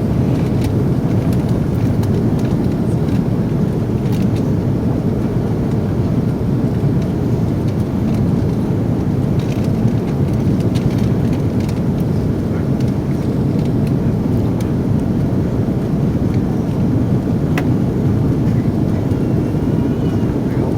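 Steady low rumble of cabin noise inside an Airbus A330-300 airliner during the landing: engine and airflow noise, with a few faint clicks.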